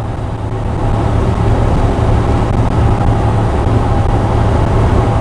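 Heavily loaded truck driving, heard from inside the cab: a loud, steady low engine drone with road noise. A faint steady whine comes in about halfway through.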